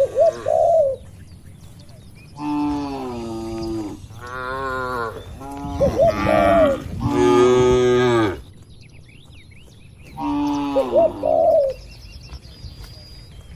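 Cattle mooing: a run of long, drawn-out moos one after another through the middle, and another near the end.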